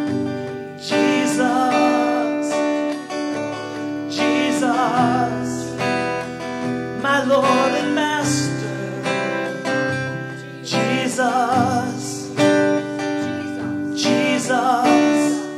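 Worship song with strummed acoustic guitar and a voice singing long wavering notes with vibrato.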